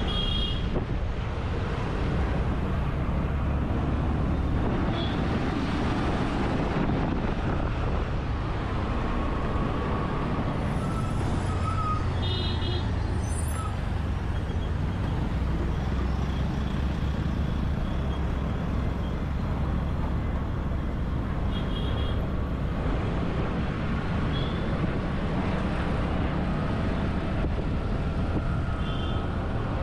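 City road traffic: a steady rumble of engines and tyres, with short horn toots sounding a few times.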